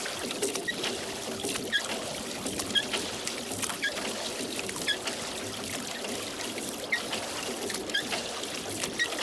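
Rowboat oars working the water of a lake: the blades splash and water trickles off them, with small drips plinking back into the lake about once a second.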